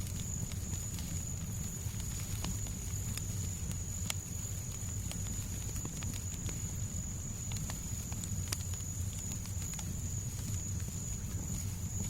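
Fireplace fire crackling: irregular sharp pops and snaps, a few louder ones around four and eight and a half seconds in, over a steady low rumble and a faint constant high-pitched tone.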